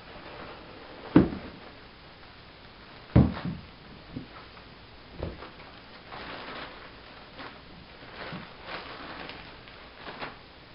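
A cardboard shipping box being opened and handled: two loud thumps about one and three seconds in, then lighter knocks and stretches of rustling and scraping.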